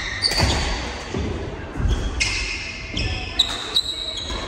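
Badminton rally on a wooden court floor: shoes squeaking in several short stretches, footsteps thudding, and a few sharp cracks of rackets striking the shuttlecock.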